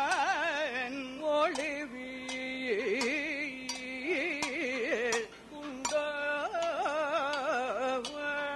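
Kathakali song in raga Bhairavi: a male voice singing with heavy wavering ornaments over a held steady note, with a short pause about five seconds in. Sharp metallic strikes of the chengila gong keep time at fairly even intervals throughout.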